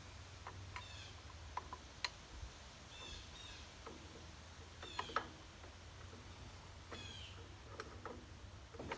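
Birds chirping now and then with short falling calls, and a few sharp metal clinks, the loudest about two seconds and five seconds in, from steel coupler pins being handled and fitted.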